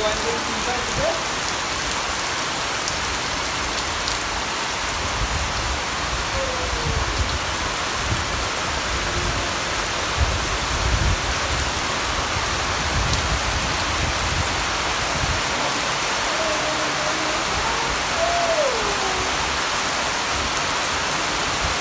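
Heavy rain falling steadily in a dense, even hiss, with a low rumble underneath from about five to sixteen seconds in.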